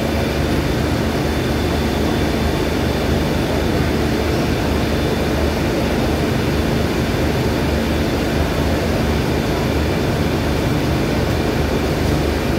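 Stationary diesel passenger train running at a standstill: a steady low engine drone with a held hum and a faint high whine.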